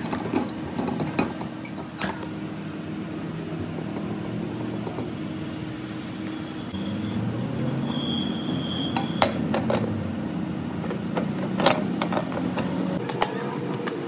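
Metal clinks and knocks as a refrigerator compressor's parts are handled: the stator and pump assembly is set into the steel shell and the domed steel lid fitted on, with a few sharp clinks in the second half, over a steady low rumble.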